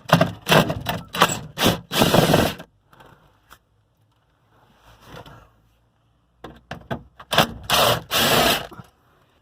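Rubbing, scraping and rattling of hands and tools working parts loose under an old truck's dashboard, in two busy spells of quick scrapes and knocks with a quieter pause between them.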